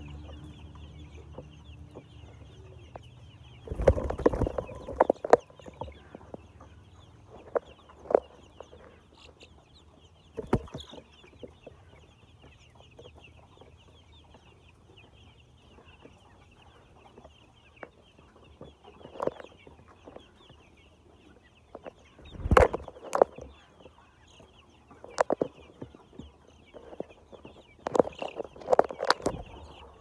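A large flock of white chickens in a shed: a steady high chatter of many small calls, with louder bursts of clucking breaking out every few seconds.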